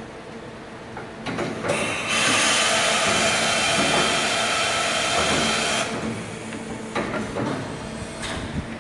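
Mori Seiki MV-35/40 vertical machining center running on test with a steady hum. About a second and a half in, a loud, even hiss builds up, holds for about four seconds, then cuts off, and a couple of short knocks follow near the end.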